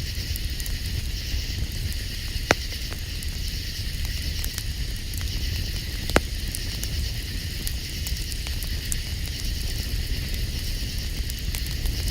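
Campfire crackling steadily with many small ticks, and two sharp pops about two and a half and six seconds in, over a steady high hiss and low rumble.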